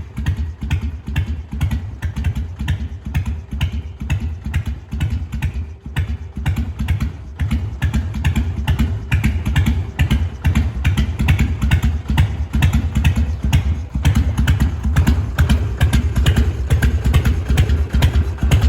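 Harley-Davidson Sportster 883R's air-cooled 45-degree V-twin idling with its uneven, loping 'potato-potato' beat after a carburettor rebuild, getting a little louder partway through.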